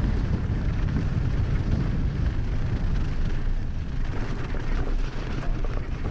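Wind buffeting a helmet-mounted camera's microphone on a fast mountain bike descent at about 25 mph: a loud, uneven rushing rumble. Under it, the tyres crunch and rattle on a loose dirt and gravel road.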